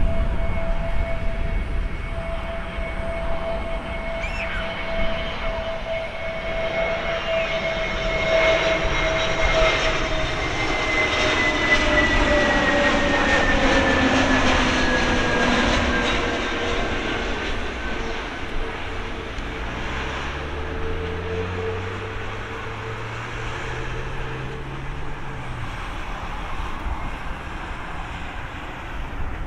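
Airbus A321LR jet engines on landing approach as the airliner passes close by: a steady whine that is loudest and drops in pitch about twelve seconds in, then fades as it rolls out on the runway. Later a lower hum rises in pitch.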